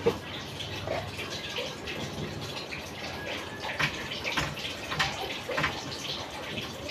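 Water running and splashing at a sink, with scattered light knocks and clicks; a sharper knock comes right at the start.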